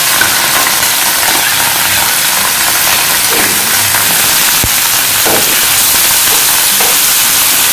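Beef strips frying in hot olive oil in a very hot stainless steel frying pan: a loud, steady sizzle with crackling as more meat is scraped in from a bowl with a spoon. There is one sharp tap about four and a half seconds in.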